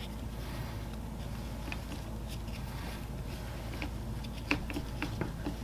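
Faint scattered clicks and rustles of nylon sling webbing being pulled and adjusted through a tri-glide, over a steady low hum.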